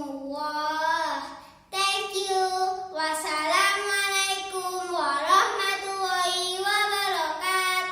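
A child's voice chanting an Arabic prayer to a sung melody, drawing out long wavering notes, with a short break for breath about a second and a half in.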